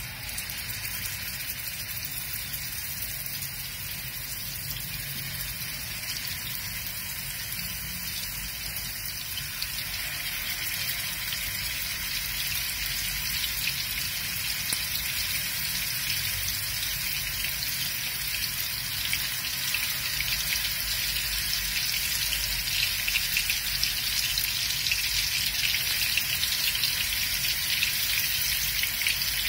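Hot oil sizzling in a frying pan as round minced-meat galouti kababs are laid in and shallow-fried on a low flame. It is a steady hiss that grows louder and more crackly as more kababs go into the oil.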